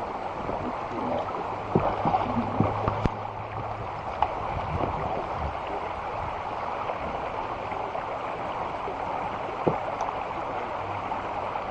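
Creek water splashing and rushing around a kayak as it is paddled, with a few sharp knocks.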